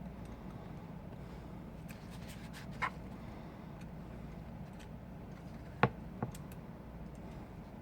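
A few sharp light clicks and taps of small tools and parts being handled during a phone repair, three in all, the loudest a little past the middle, over a steady low hum.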